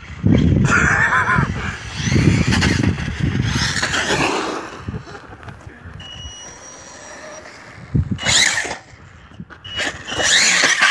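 Electric RC truggy with a Castle 5800kV brushless motor on a 3S LiPo, driven in repeated throttle bursts: the motor's high whine rises and falls in pitch with each punch of throttle, along with tyre and drivetrain noise.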